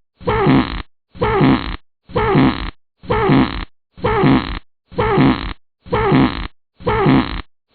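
A recorded fart sound effect looped over and over. The same short fart, falling in pitch, repeats about once a second, eight times.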